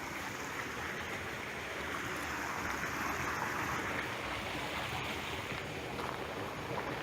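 A swift river flowing, a steady rush of fast water that swells slightly in the middle seconds.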